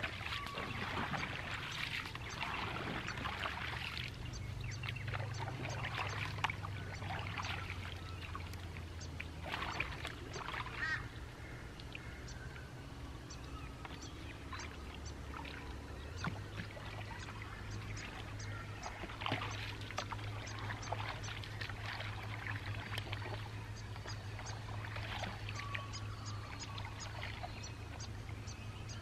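Canoe paddle strokes splashing and dripping in calm river water, irregular and repeated, with a few bird calls and a steady low hum underneath.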